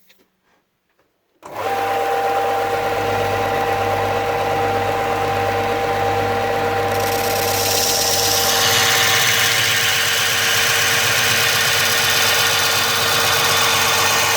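A belt grinder's motor starts about a second and a half in and runs steadily with a constant hum and whine. From about halfway a louder, hissing grinding joins, as a knife blade held in a bevel jig is run against the belt.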